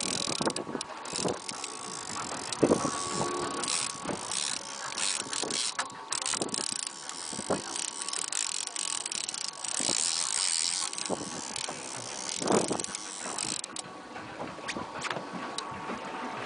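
Heavy fishing reel clicking irregularly as line is reeled in and a big hooked fish pulls it back out against the drag.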